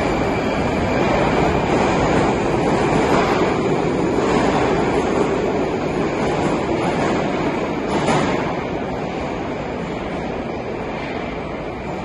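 Moscow Metro train rumbling in the station along the platform, a steady loud roar that eases off after about eight seconds.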